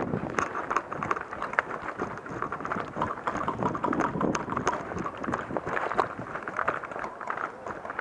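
Running footsteps on grass with an irregular patter of thuds, scuffs and knocks from carried paintball gear.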